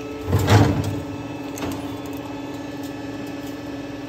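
CNC lathe running with a steady hum, with a brief loud noisy burst about half a second in and a smaller one about a second later.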